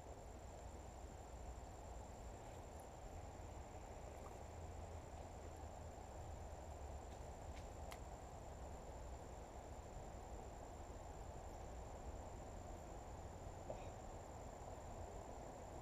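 Faint outdoor ambience: a steady low rumble with a continuous high-pitched insect trill over it.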